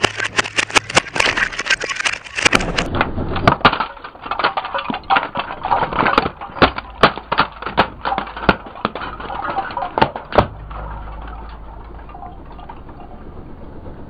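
Plastic Rubik's cubes cracking and snapping under a car tyre: a rapid, irregular run of sharp cracks that stops about ten seconds in. After that only the car's low, steady rumble is left.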